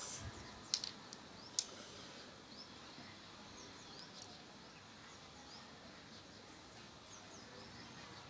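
Fingernails cracking head-lice nits pulled from the hair: a few sharp, brief clicks, the loudest about a second and a half in, over a faint steady hiss.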